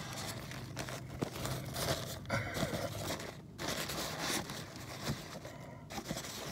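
Paper napkin being handled and crumpled by hand right against the microphone: an irregular run of rustling, crinkling and scraping.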